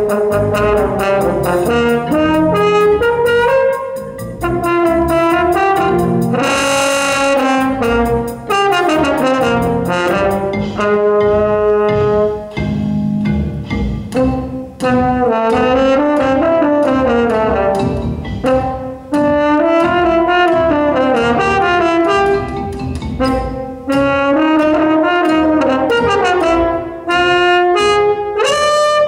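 French horn playing a winding melodic line in phrases with brief breaks every few seconds, over a prerecorded electronic tape accompaniment.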